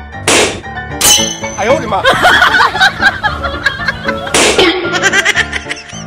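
Background music with laughter over it, broken by two loud bangs: a balloon bursting just after the start, and another about four and a half seconds in.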